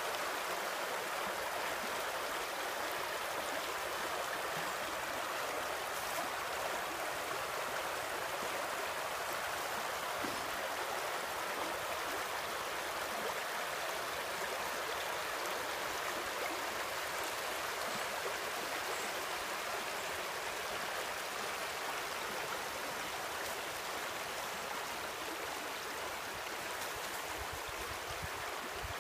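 Shallow stream running over a rocky riffle: a steady rush of water.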